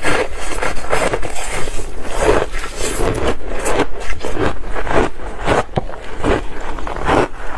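Ice with passion fruit being bitten and chewed close to the microphone: a quick run of loud, crisp crunches, about two a second.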